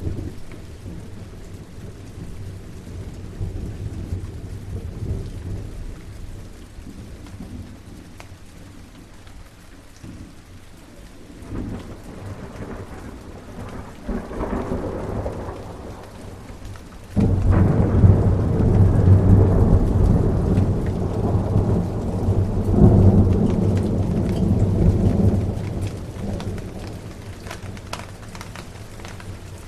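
Steady rain with thunder rumbling underneath. A rumble swells about halfway through. Then a much louder peal of thunder breaks in suddenly and rolls on for several seconds before dying back to the rain.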